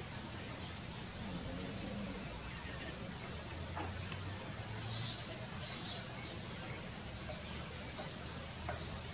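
Faint outdoor background noise with a few faint, high, short bird chirps scattered through it.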